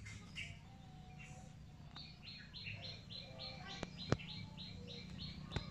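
Birdsong: a bird repeating a short, high chirp about three times a second, starting about two seconds in, over fainter scattered bird calls. A few sharp clicks cut through, the loudest a little past the middle.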